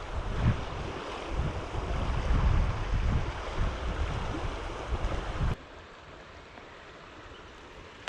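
Wind buffeting the camera microphone in low gusts over a steady rush of outdoor noise. About two-thirds of the way through it drops off suddenly to a faint steady hiss.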